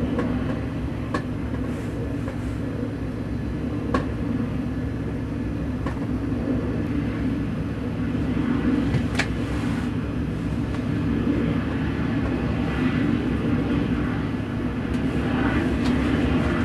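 Boeing 747 jet engines running at high thrust in a steady, loud roar, their blast pushing at vehicles parked behind the jet. A few sharp clicks stand out from the roar.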